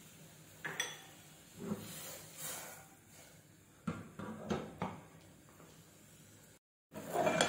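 Utensil and aluminium saucepan clinking and knocking about five times, roughly a second apart, while jaggery is added to the simmering spiced water for tea.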